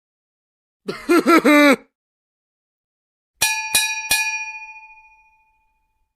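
A brief voice-like sound with bending pitch, then three quick metallic dings, a bell or chime sound effect, that ring out and fade over about two seconds.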